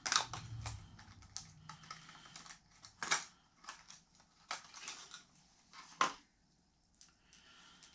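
Plastic crankbait package being handled and opened by hand: irregular clicks and crinkles, with sharper snaps right at the start, about three seconds in and about six seconds in.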